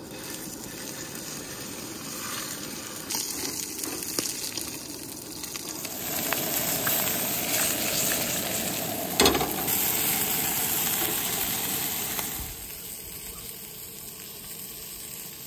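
Whole trout frying in a pan on a camp stove: a steady sizzle that grows louder about six seconds in and drops back near the end, with a single sharp knock about nine seconds in.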